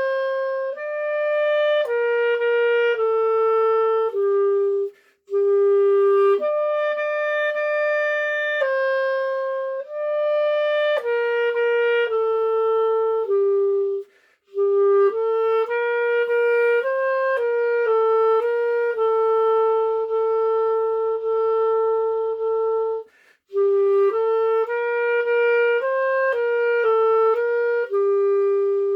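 Solo clarinet playing a simple melody of held and stepping notes, in phrases broken three times by short pauses for breath.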